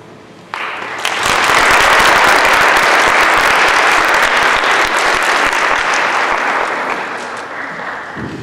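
Audience applauding a choir's finished song: the clapping starts sharply about half a second in, swells within a second, holds, then dies away near the end.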